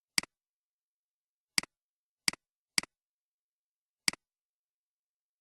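Five short, sharp double clicks, each a strong click followed at once by a fainter one, at uneven intervals, against dead silence.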